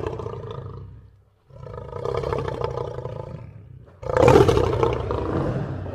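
Lion roaring in long, drawn-out roars that each fade away. One roar dies out about a second in, a second runs from about a second and a half to four seconds, and a third, the loudest, begins about four seconds in.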